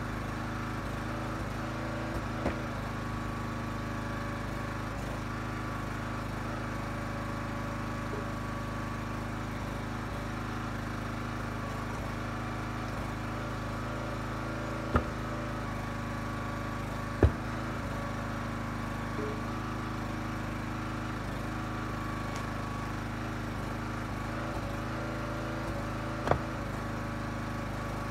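Small gas engine of a Huskee 35-ton hydraulic log splitter running steadily while short ash blocks are split. Four sharp knocks rise above it as split pieces land in the pickup truck bed.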